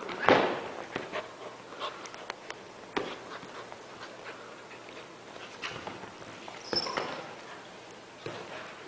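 A dog and a cat play-fighting: scattered scuffles and knocks, with one loud sudden noise about a third of a second in and a brief high squeak near the end.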